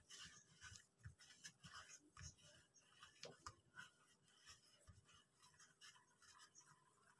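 Near silence, with faint soft rubbing and small taps of hands rolling and pressing soft atta dough on a floured wooden board, thinning out after the first few seconds.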